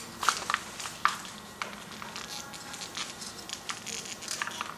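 Hands working inside a 1964 VW Beetle's metal headlight bucket at the parking light bulb holder, making irregular small clicks and scrapes, the sharpest in the first second and a half.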